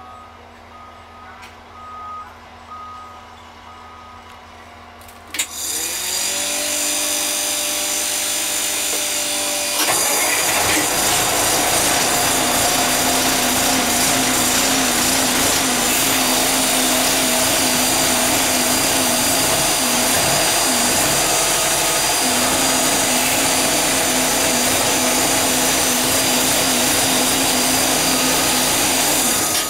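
Inside a truck cab, a click about five seconds in, then a motor whining as it winds up to a steady pitch. About ten seconds in, a much louder steady whirring rush takes over, with a steady hum under it.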